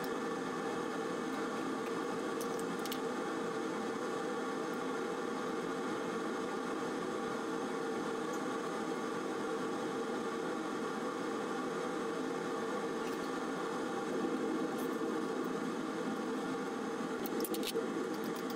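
Steady hum of a laboratory fume hood's ventilation fan, with a few faint clicks of glassware and sample handling.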